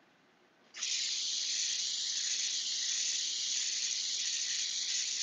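Iwata Eclipse airbrush spraying paint: a steady hiss of compressed air that starts suddenly about a second in and holds while the trigger is pulled for a shading pass.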